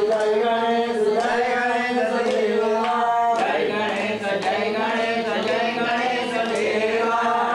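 Men's voices chanting a Sanskrit prayer to Ganesh together in long, held phrases.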